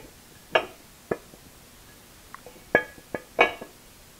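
Metal riser block knocking and clinking against the drill press's cast head as it is worked onto the casting's key: about five sharp, ringing knocks, the loudest about half a second in and near three seconds. It is a snug fit.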